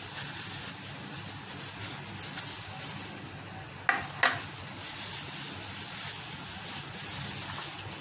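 Clear plastic glove rustling as a hand works around a glass bowl of raw mince, with two short sharp knocks close together about four seconds in.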